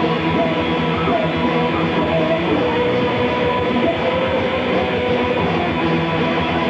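Live rock band playing, with electric guitar to the fore and a steady, dense sound.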